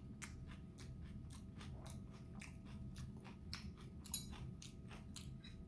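Close-up chewing of crunchy napa cabbage kimchi with rice: a faint, irregular run of crisp crunches, a few a second, with a slightly louder crunch about four seconds in.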